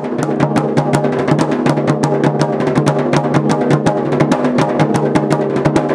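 Tribal drums, a tall rope-laced barrel drum and a large frame drum, beaten with sticks in a fast, even rhythm of many strokes a second over a steady low ring.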